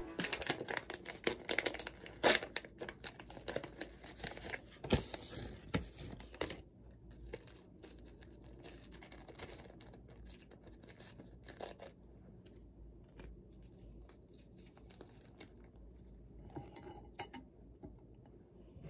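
A paper-and-foil drip-bag coffee packet torn open and crinkled, a dense run of crackling and ripping for the first six seconds or so. After that come softer rustles as the paper filter bag is unfolded and hooked onto a glass mug.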